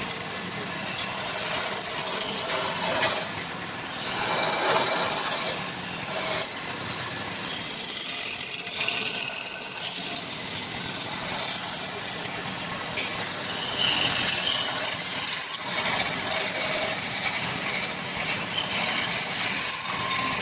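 Wood lathe running while a turning tool cuts the spinning wood: a hissing, scraping cut that swells and fades in passes of a few seconds, over the steady hum of the lathe motor.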